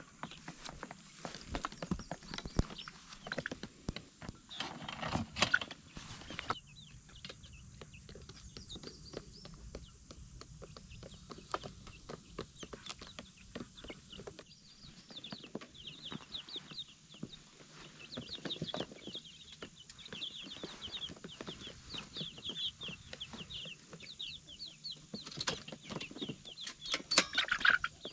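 Young chickens peeping and clucking, with a long run of quick high peeps through the second half. Scattered knocks and rustles, louder about five seconds in and near the end.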